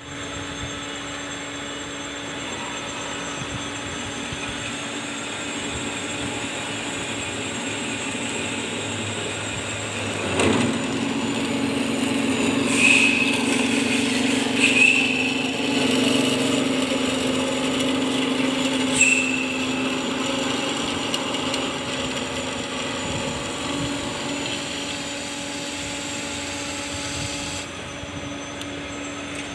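Semi-automatic metal-cutting band saw machine running with a steady hum. About ten seconds in the sound changes and grows louder, with three short high squeals over the following several seconds.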